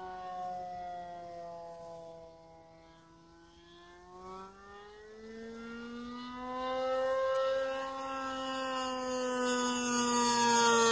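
OS .55AX two-stroke glow engine with a Pitts-style muffler, spinning a 13x6 propeller on an RC plane in flight. Its whine sinks in pitch and fades as the plane moves off, then rises and grows louder as it comes back, loudest near the end.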